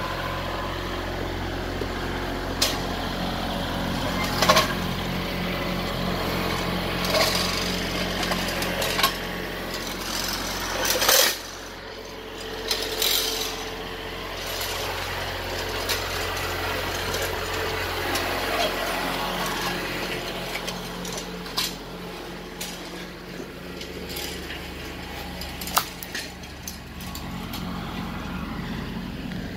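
Kubota L3901 compact tractor's three-cylinder diesel engine running, with scattered sharp knocks and cracks on top. The engine drops back about eleven seconds in and changes speed again a little before twenty seconds.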